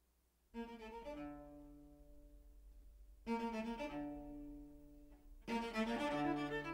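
String quartet playing held chords. They come in three times: about half a second in, near the middle, and again shortly before the end, each entry sharp and then sustained, the last the loudest.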